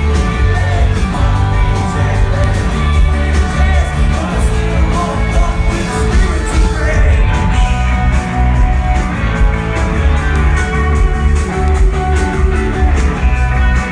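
Rock band playing live and loud: electric guitars, drums and a singer's voice, recorded from the audience.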